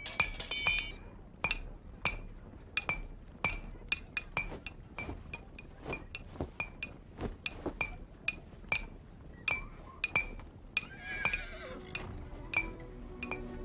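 Blacksmith's hammer striking hot iron on an anvil, a steady run of ringing metallic blows at about two a second. Music comes in near the end.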